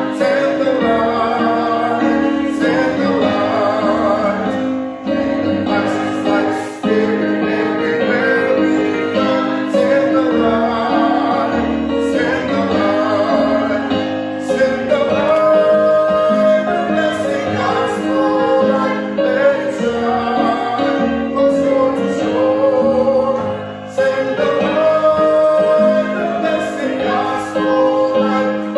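Music with singing over instrumental backing, continuing without pause.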